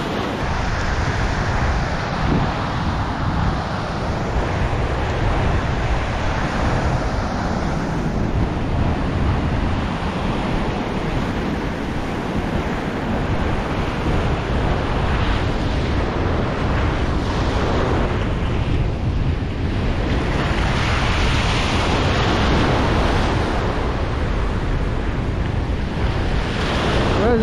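Ocean surf breaking and washing up a sandy beach, the hiss swelling louder a few times in the second half as waves come in, with wind buffeting the microphone in a steady low rumble.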